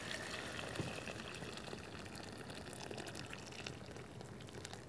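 Hot boiled water poured into a cooking pot of browned lamb and vegetables: a soft, steady pour that slowly fades.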